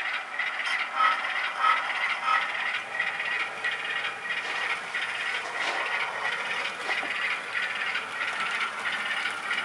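Model diesel locomotive pulling a short string of freight cars along the track: a steady mechanical rattle and scrape of the running gear and wheels on the rails, with a few light clicks.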